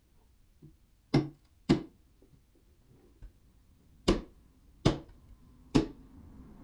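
Sledgehammer striking steel splitting wedges driven into a log, each blow a sharp ringing metallic clank. Two blows come about a second in, half a second apart, then three more follow under a second apart.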